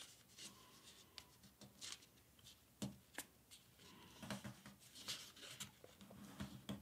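Faint, scattered paper rustles and soft crinkles as a sheet of paper is lined up and creased by hand.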